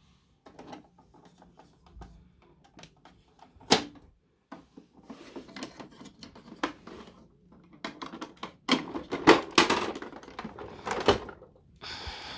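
Hard plastic clicks and knocks of a Paw Patroller toy truck being handled: scattered light clicks, one sharp knock about four seconds in, and a run of louder clacks near the end, followed by a brief hiss.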